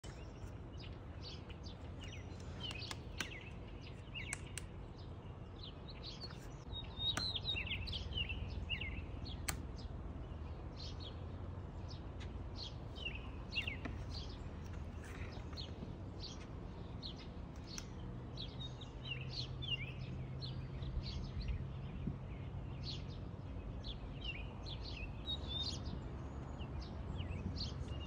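Small songbirds chirping and singing: many short chirps and warbled phrases throughout, busiest from about seven to nine seconds in, over a steady low background rumble.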